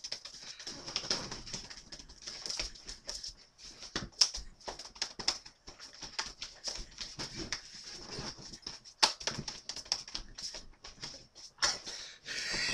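Hambone body percussion: hands slapping the thighs and chest in quick, uneven slaps, with a faint high whine under it.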